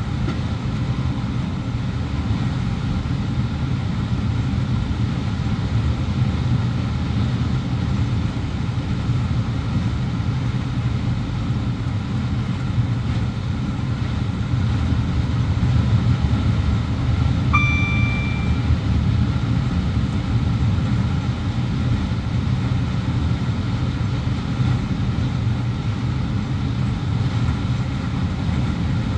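Cab of a Class 350 Desiro electric multiple unit running at speed: a steady rumble of wheels on the track and the train's running gear. A little past halfway, a short electronic beep sounds in the cab for about a second.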